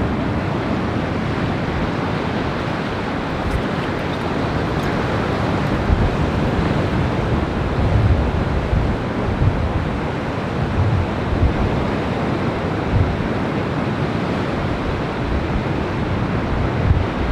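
Ocean surf washing steadily onto a rocky shore, with wind buffeting the microphone in irregular low rumbles.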